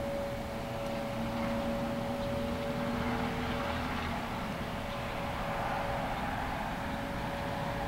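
Unexplained droning sound in the sky: a few steady, held tones over a constant low rumble. The highest tone fades out about six seconds in. It is loud and sounds to the uploader like sirens that go on far too long.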